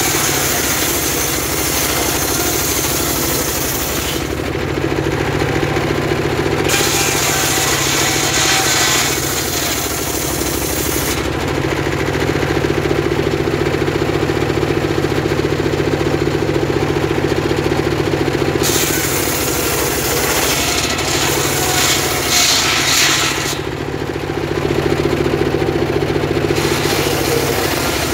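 Homemade trailer-mounted circular saw, driven by a small stationary engine, running steadily and ripping very hard timber. A high cutting noise sets in and stops four times as the blade goes into the wood and comes out of it.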